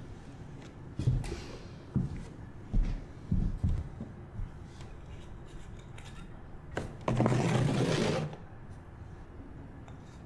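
Water poured from a glass carafe into a potted plant, a steady splashing pour of about a second near the end, after a few soft knocks and thuds as the carafe is handled.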